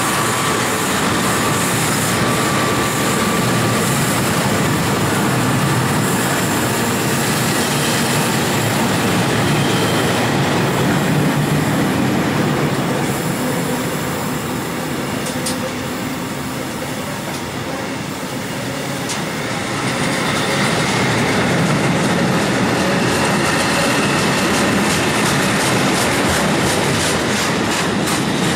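Curtain-sided freight wagons of a passing freight train rolling by on the rails: a loud, steady rumble of wheels on track. It eases off briefly about halfway through, then rises again with a run of rhythmic clacks over the rail joints.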